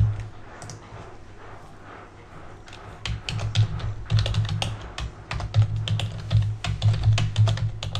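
Computer keyboard typing: a quick, uneven run of keystrokes starting about three seconds in, as a word is typed out.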